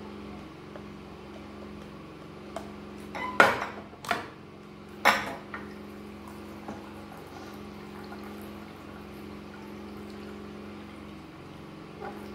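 Water poured from a glass jug into a glass bowl of gari, with a few sharp glassy clinks of the jug and bowls between about two and a half and five seconds in. A steady low hum runs underneath.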